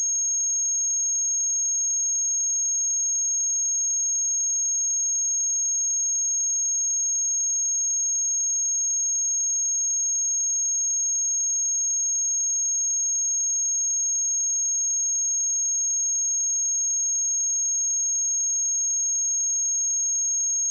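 A steady pure sine tone at 6517 Hz, a single high-pitched whistle-like note that holds level without change, used as a test signal for speakers and headphones.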